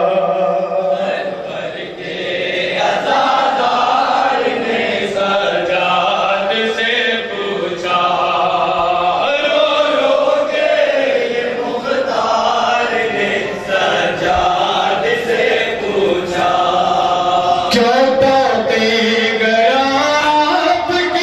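Male voices chanting a noha, a mournful Urdu lament sung as a single melodic line. Near the end it is joined by faint sharp slaps, the sound of hands striking chests in matam.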